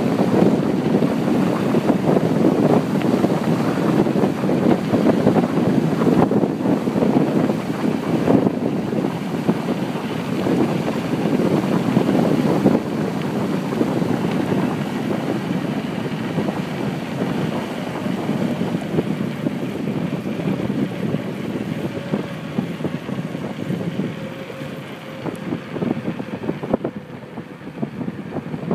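Wind rushing over the microphone during a fast downhill bicycle ride, a steady rushing noise that eases off near the end.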